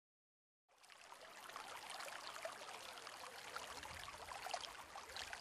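Faint sound of falling rain, a steady patter of many small drops with trickling water, fading in about two-thirds of a second in.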